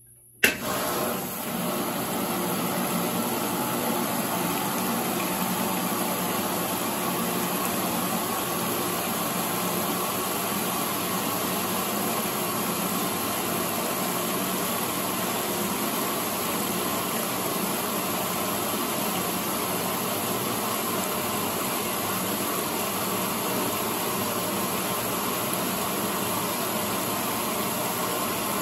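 Late-1970s Maytag A806 top-loading washing machine running with a steady, even rush of noise that starts suddenly about half a second in.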